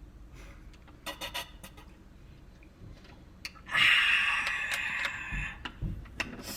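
Deliberately loud eating noises from a person chewing with the mouth open: a few sharp smacking clicks about a second in, then a louder, noisier stretch of smacking from about four seconds in.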